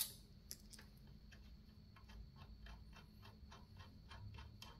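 Socket ratchet clicking faintly in a quick, even rhythm, about five clicks a second, as a nut is run on or off.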